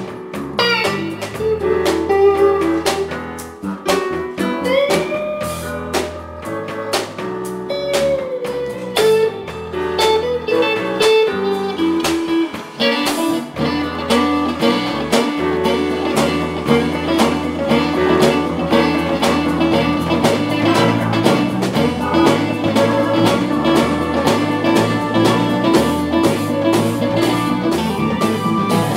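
Live blues band playing an instrumental passage: a guitar lead with bent, gliding notes over bass and drums. The playing grows denser and more sustained about halfway through.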